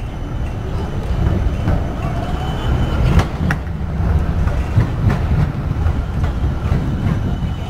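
Outdoor city ambience: a steady low rumble, with two sharp clicks a little over three seconds in.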